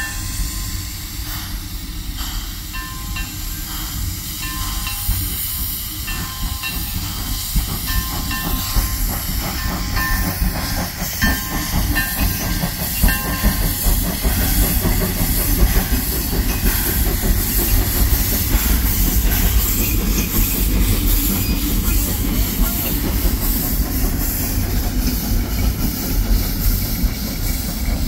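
Small saddle-tank steam locomotive pulling a passenger coach slowly past, with steam hissing and the wheels clacking over the rails, growing steadily louder as it draws near.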